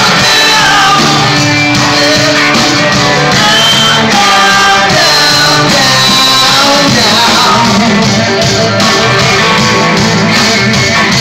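Live rock band playing loud, with a singer's voice over the instruments.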